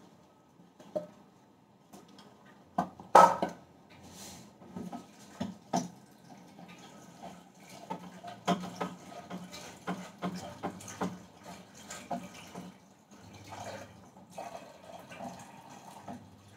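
A steel pot and raw cut potato sticks clattering and knocking, the loudest knock about three seconds in, with water running and splashing as the cut potatoes are rinsed in the pot to wash out their starch.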